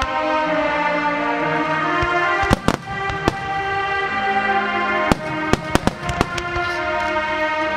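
Aerial fireworks shells bursting in a quick series of sharp bangs, about a dozen, mostly in the middle of the stretch, over sustained melodic music that plays throughout.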